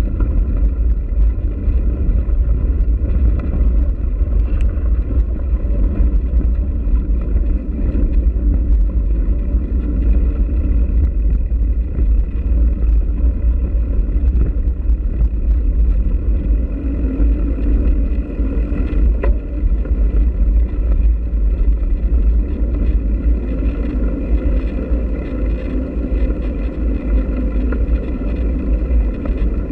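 Steady low rumble of wind and road vibration on a bike-mounted camera's microphone while riding a dirt and gravel track.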